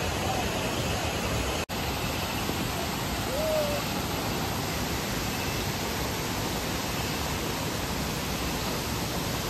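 Rushing water of a rain-swollen stream pouring over rocks and a small waterfall, a steady even noise. It drops out for an instant a little under two seconds in.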